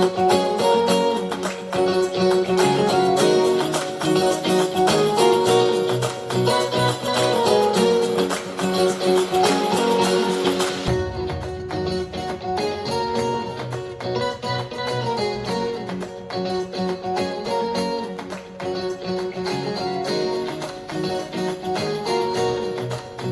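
Guitar-led music played back through a Bluetooth speaker under test. About eleven seconds in the tone changes abruptly, losing its sparkle at the top and gaining deeper bass.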